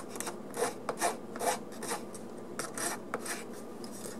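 Flat file scraping the burrs off a small stamped brass connecting rod held on a wooden block, in short, uneven strokes.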